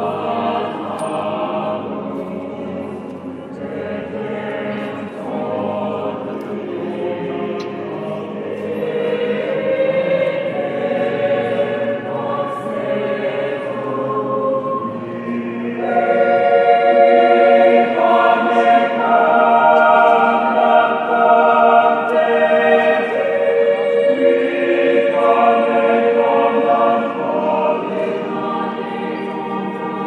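A choir singing a cappella: many voices holding long, sustained chords that change slowly, swelling clearly louder about halfway through.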